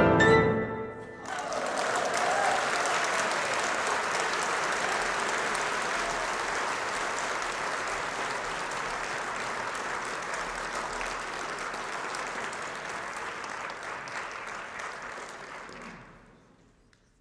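The final notes of cello and piano end about a second in, then an audience applauds steadily, fading out near the end.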